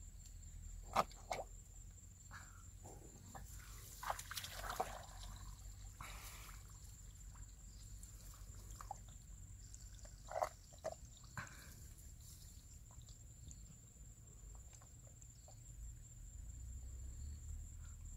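Hands groping in shallow muddy water, with small splashes, drips and squelches that come in short bursts: about a second in, around four to five seconds in, and again around ten to eleven seconds.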